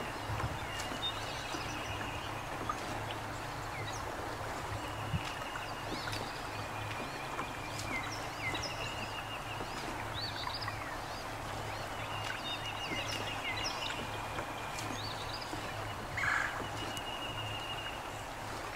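Songbirds singing over a steady outdoor hiss of wind: a trill held on one pitch for about a second, repeated every few seconds, with scattered short chirps, and a brief louder call about sixteen seconds in.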